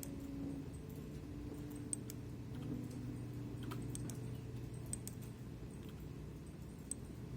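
Scattered, separate clicks of a computer keyboard and mouse over a steady low hum.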